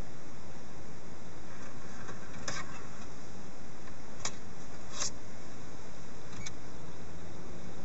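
Steady hiss of a car cabin with the music off, broken by four short, sharp clicks as the touchscreen head unit is tapped.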